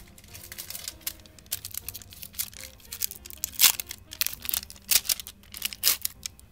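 Foil wrapper of a 1991 Upper Deck basketball card pack crinkling and tearing as it is pulled open by hand, with several louder rips in the second half.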